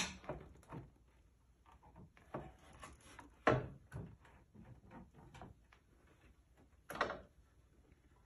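Wooden knocks and clunks from the panels and fallboard of a 1927 Steinway player piano being opened and handled. There are three louder clunks, at the start, about three and a half seconds in and about seven seconds in, with lighter taps between them.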